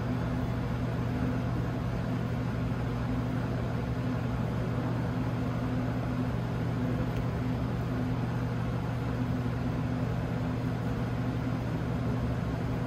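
Steady low mechanical hum with an even hiss of air noise, the background drone of the indoor hall's ventilation.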